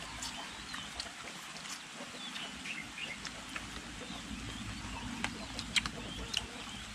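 Scattered short bird chirps over a low steady background hum, with a few sharp clicks from people eating.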